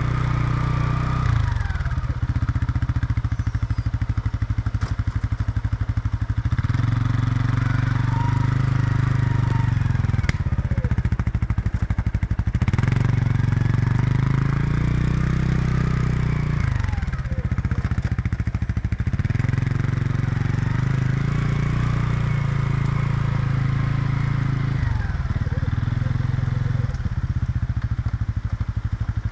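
Four-wheeler (ATV) engine running as it drives slowly around spraying. Its pitch sinks and climbs again every few seconds with the throttle.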